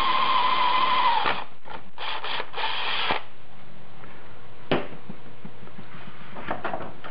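Cordless drill boring a hole through an aluminium bracket. Its steady whine stops about a second in and is followed by a few short bursts of the drill, then one sharp click near the middle and a few faint clicks near the end.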